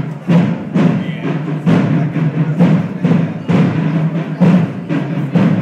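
Procession drums beating a steady marching rhythm, about two strong strokes a second over a continuous low drumming.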